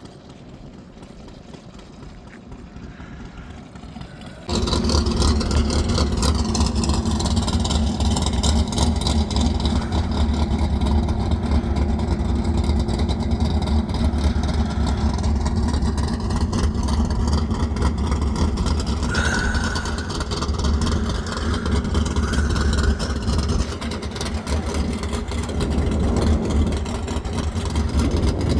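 A race car's engine running loud and steady at low pitch, cutting in suddenly about four and a half seconds in after a faint, quiet start.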